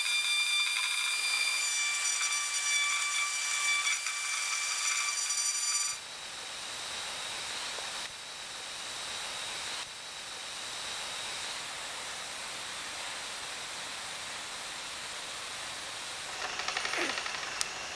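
Pneumatic die grinder with a tapered burr spinning at high speed, a steady high-pitched whine while it grinds down staple tips on a plastic headlight tab. About six seconds in it cuts off to the steady hiss of a nitrogen plastic welder's hot gas flow, with a few louder scratches and a click near the end.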